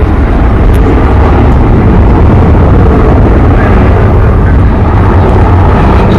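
Avro Vulcan bomber's four Rolls-Royce Olympus turbojets passing overhead in a display flypast: a loud, steady jet rumble, heaviest in the deep low end.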